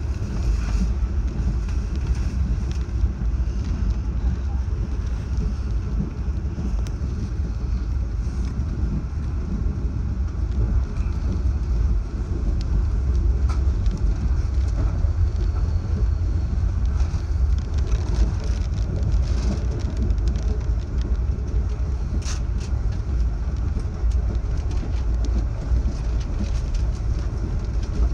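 Steady low rumble of a moving Amtrak passenger train, heard from inside the carriage, with a few faint clicks.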